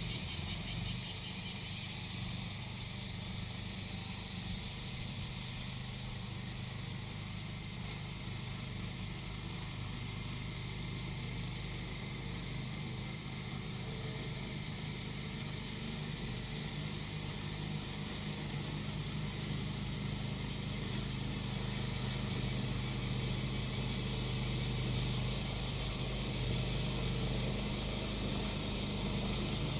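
The small engine of a grass-cutting machine running steadily, with cicadas buzzing over it in a pulsing high drone. The cicadas grow a little louder in the later part.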